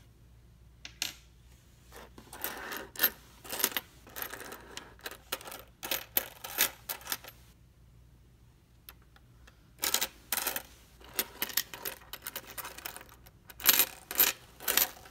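Loose Lincoln cents clinking and sliding on a wooden tabletop as a handful is spread out and sorted by hand. Two spells of rapid clatter, with a lull of about two seconds midway.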